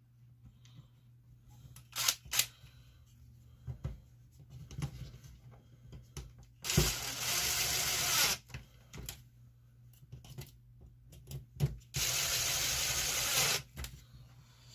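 Cordless drill running twice in steady bursts of about a second and a half, driving screws into the wing mount, with small clicks and knocks of plastic and metal parts being handled in between.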